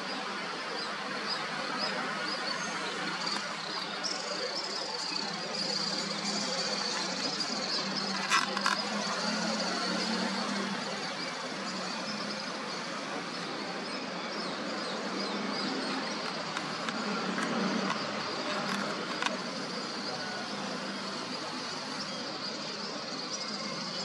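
Outdoor dawn ambience: a dense wash of small bird chirps and insect buzz, with a low steady hum underneath. Two sharp clicks stand out, about a third of the way in and again past three-quarters.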